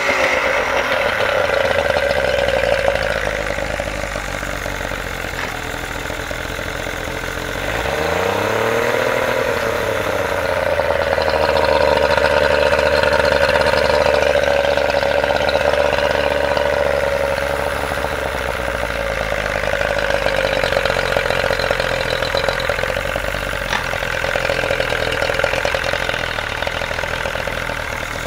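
Yamaha 50 hp outboard motor running with its cowling off. It revs up briefly about a third of the way in, then settles back to a steady run.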